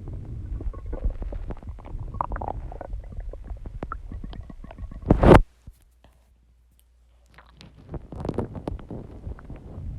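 Human stomach growling and gurgling, picked up close to the belly, with a loud gurgle about five seconds in. It then drops to near silence for about two seconds before the gurgling starts again.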